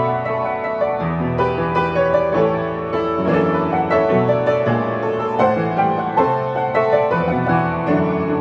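Upright piano being played: a melody over chords with a moving bass line, the notes following one another without a break.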